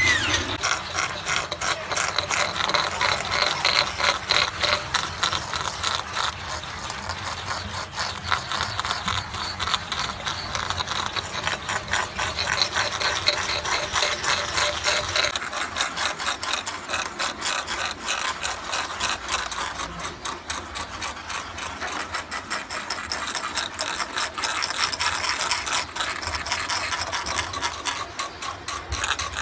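Several bamboo rats gnawing on green bamboo stalks with their incisors: a dense, fast crunching and scraping of teeth on bamboo that keeps going throughout.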